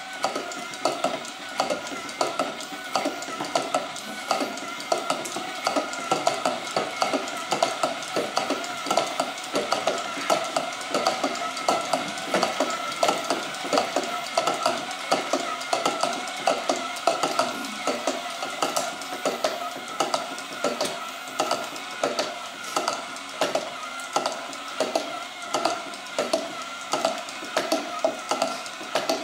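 Several small 3D-printed battery-powered rocking walker robots walking together: their small electric motors whir steadily under a dense, uneven clatter of plastic clicks and taps as the legs rock and the feet strike the counter.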